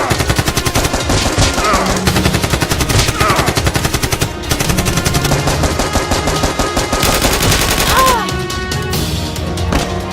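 Rapid automatic machine-gun fire sound effects, dense and continuous, over action music. The firing thins out near the end as the music comes forward.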